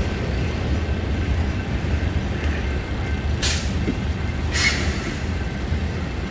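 Freight train rolling past, a steady low rumble of railcars, with two short hisses about a second apart in the middle.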